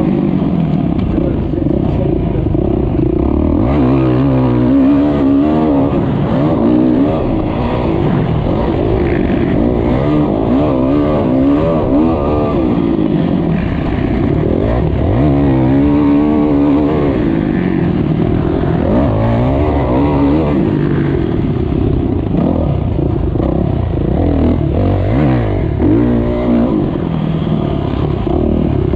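Motocross bike engine revving hard and falling back over and over as the rider opens the throttle on the straights and shuts off for turns and jumps, heard close up from an onboard action camera.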